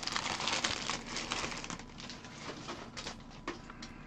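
Foil booster-pack wrapper crinkling as it is picked up and handled: a dense crackling rustle for the first second or so, thinning to scattered crinkles.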